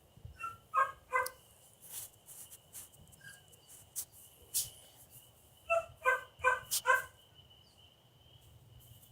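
A dog barking: two or three barks within the first second, then a quick run of about five barks a little after the middle.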